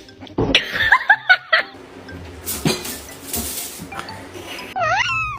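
Background music with clinking and laughter, then a cat meows once near the end.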